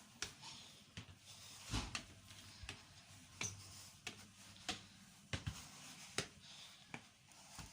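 Faint clicks and knocks about every 0.7 seconds inside a double-decker passenger railway car, over a faint steady low hum.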